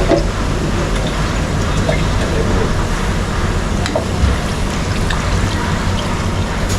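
Pan of watery pav bhaji vegetable gravy cooking on the stove: a steady rushing noise with a low hum and a few faint clicks.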